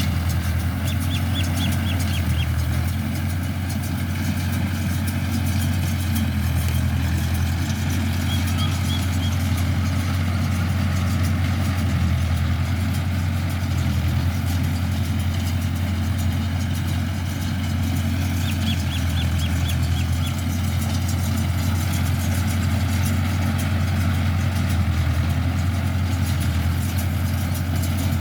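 Mahindra tractor engine running steadily while driving a baler.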